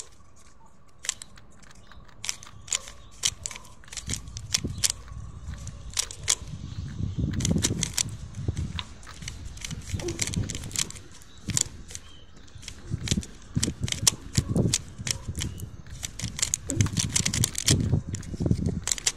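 3x3 Rubik's cube being turned fast while it is solved: a quick, uneven run of sharp plastic clicks as the layers snap round. A low rumbling noise comes and goes from about four seconds in.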